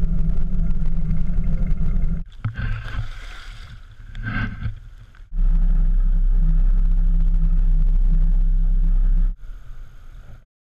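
Steady low rumble of a fishing boat's motor heard through the camera on board. It breaks off abruptly three times, with a quieter, more varied stretch in the middle.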